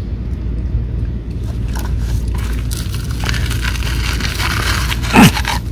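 Steady low outdoor rumble of traffic, with a hiss that swells and fades in the middle like a car passing. A short, loud, falling voice-like sound comes near the end.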